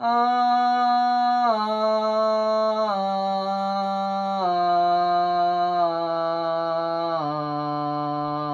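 Reference tone from the Piascore app's tuner on an iPad: a sustained electronic note with a buzzy, harmonic-rich timbre. It steps down in pitch five times, about every second and a half, each note held steady.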